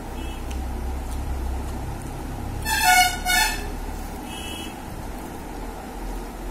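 A vehicle horn sounds twice in quick succession, two short loud toots, over a steady low rumble of road traffic.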